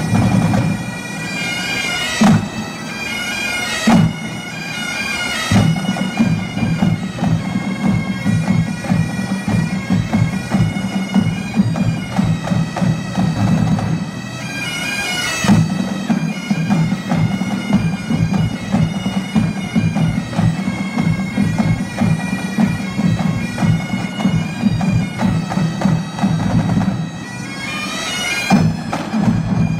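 Pipe band playing: bagpipes sounding a tune over their steady drones, with marching snare and bass drums keeping time. Several loud drum strikes stand out through the piece.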